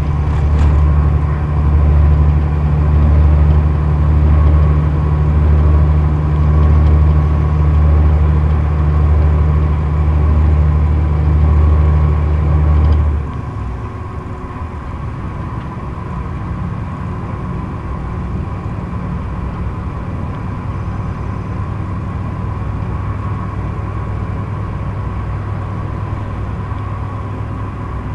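Scania K114 IB coach's straight-six diesel heard from inside the passenger cabin at motorway speed: a steady, loud low drone with road and tyre noise. About halfway through the deep engine drone drops suddenly and the sound becomes quieter and thinner.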